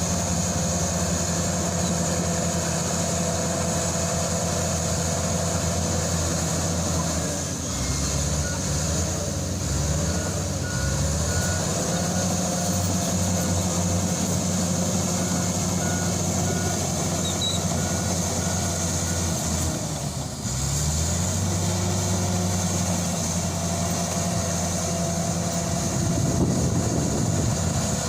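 Shantui SD20-5 bulldozer's diesel engine running steadily, its pitch shifting a few times as the machine works. A reversing alarm beeps for several seconds in the middle.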